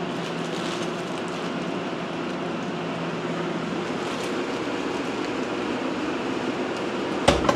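Laminar flow hood's blower running steadily, a constant rush of air with a low motor hum, and a single sharp click near the end.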